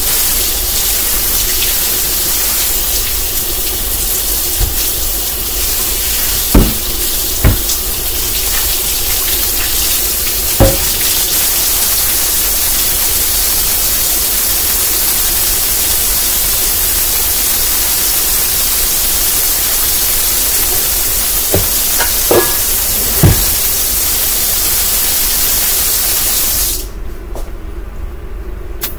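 Kitchen tap running steadily into a sink during dishwashing, with a few sharp clanks of dishes. The water is shut off suddenly near the end.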